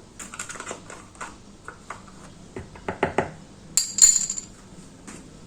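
Kitchen utensils clinking and knocking against a bowl: a run of light clicks, a few louder knocks, then a bright ringing clink about four seconds in.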